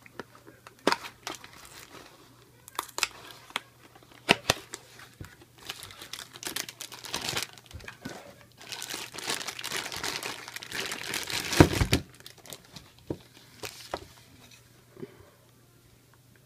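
Cardboard toy box being handled and a thin clear plastic bag crinkled and torn open to unwrap a plastic toy airplane. Scattered crackles at first, then a few seconds of dense crinkling in the middle, ending in the loudest snap, then only a few small handling noises.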